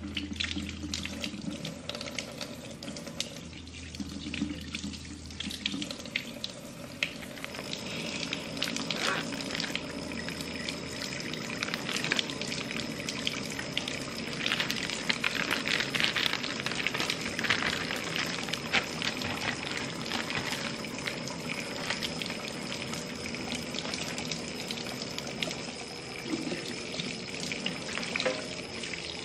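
Kitchen tap running into a stainless steel sink as raw salmon portions are rinsed under it, with water splashing over the fish and short clicks and knocks of handling. The running water grows louder about seven seconds in and stays steady.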